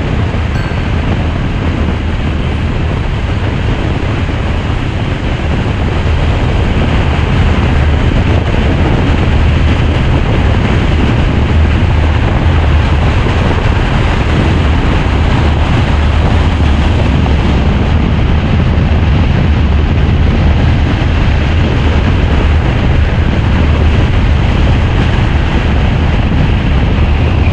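Steady wind and road noise from a moving car, with a heavy low rumble of wind buffeting the microphone; it grows a little louder several seconds in.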